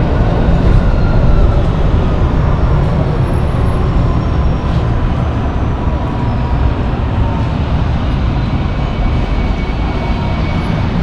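Paris Métro train running, a loud, steady low rumble with faint whining tones that eases slightly toward the end.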